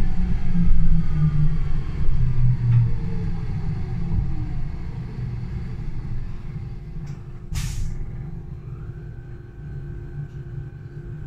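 Solaris Urbino 12 Hydrogen fuel-cell bus slowing down: the electric drive's whine falls in pitch over a low rumble that gradually gets quieter. About seven and a half seconds in there is a short hiss of compressed air, and a steady high tone sets in soon after.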